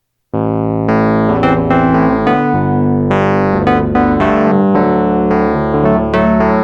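Background music played on electric piano and synthesizer, with chords struck in a steady rhythm.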